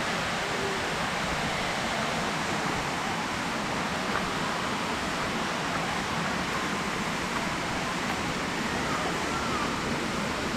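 Steady rush of a waterfall's falling water: an even, unbroken noise.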